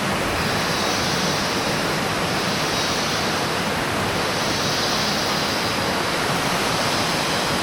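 Steady rushing noise of running water, with a high hiss that swells and fades every second or two.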